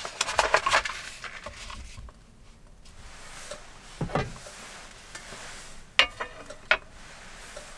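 A thin plastic sheet crinkling as it is handled and laid on a wooden cutting board, then a dull thud about four seconds in. Two sharp clacks near the end as a black tray is set down on a wooden table.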